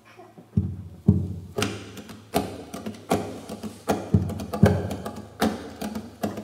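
Two classical guitars played percussively. After a brief hush, sharp rhythmic strikes on the instruments come about one to two a second, with low string notes ringing under each strike.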